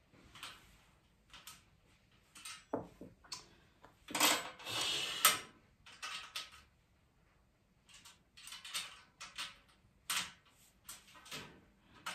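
Metal parts of a flat-pack mesh trolley being handled and bolted together: scattered clinks and rattles, with a longer, louder stretch of rattling between about four and five seconds in.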